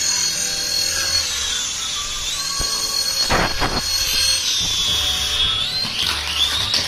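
Tiny electric motors and propellers of a flying Doraemon induction helicopter toy hovering, a high whine whose pitch drops and rises again several times. About halfway through there is a brief louder rush of air.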